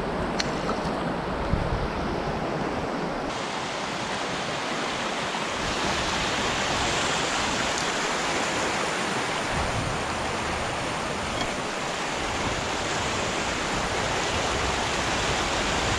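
Fast creek water rushing over and between rocks in a steady, unbroken rush.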